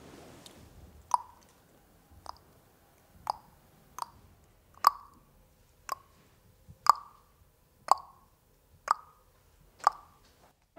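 A child making popping sounds with his mouth, about one pop a second, ten in all.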